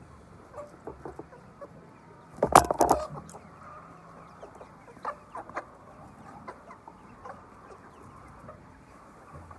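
Many chickens clucking together in a poultry house, with scattered short clicks and one loud clattering burst lasting about half a second, about two and a half seconds in.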